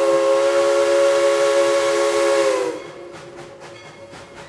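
Tweetsie Railroad No. 190's steam whistle sounding one long, steady chord of several tones over steam hiss. It cuts off sharply about two and a half seconds in, leaving the train's rapid, even beat of about four a second.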